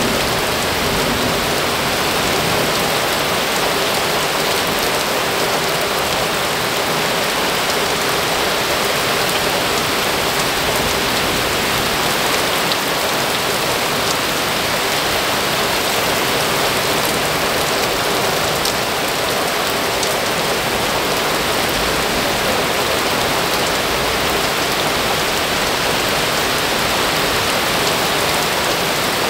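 Very heavy thunderstorm rain pouring down, a dense, steady hiss with no let-up.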